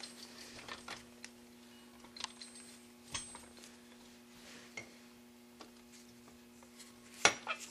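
Light metallic clicks and taps of snowmobile rear-suspension parts being handled as a shaft and washers are fitted through the shock's mounting eye, with a louder clack about seven seconds in. A steady low hum runs underneath.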